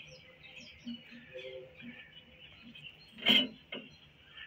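Quiet hand work on a gas fryer's controls and burner compartment, with one short knock about three seconds in. Faint bird chirps in the background.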